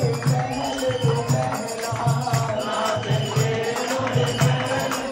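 Devotional Holi song sung into a microphone, accompanied by a harmonium and a dholak hand drum keeping a steady beat, with bright jingling percussion over it.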